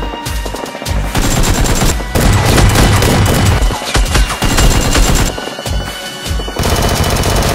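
Rapid bursts of gunfire sound effects over background music, densest and loudest in the middle.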